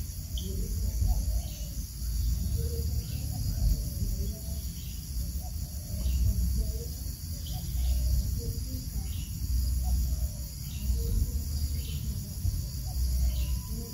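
Steady, high-pitched insect chorus with a low, uneven rumble beneath it. Faint short chirps repeat about once a second.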